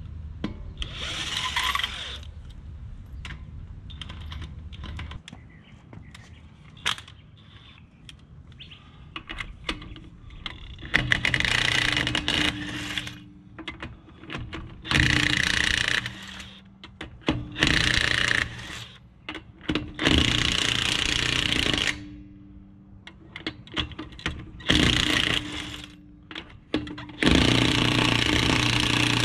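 Cordless impact wrench firing in repeated bursts of one to two seconds, about seven times, spinning and hammering nuts on the wheel-hub studs as a wheel spacer is fitted. Between bursts come light metallic clicks and clinks of nuts and tools.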